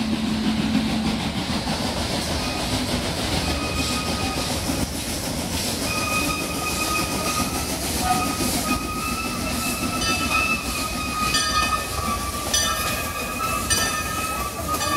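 Steam train rolling past at low speed, its wheels squealing in a steady high tone from about four seconds in, with a run of sharp clicks from the wheels over the rail joints in the second half.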